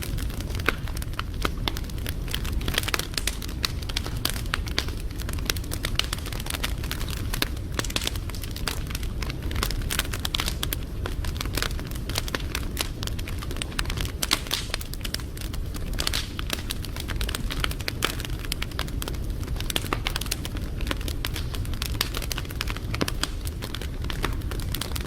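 Wood fire crackling, with dense irregular pops and snaps over a steady low rumble of burning.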